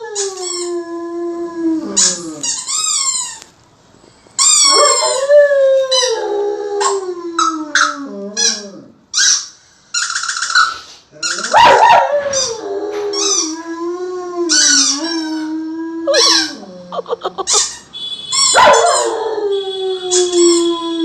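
German Shepherd howling along to a squeaky toy: several long howls that slide down in pitch and hold, between short high squeaks from the toy.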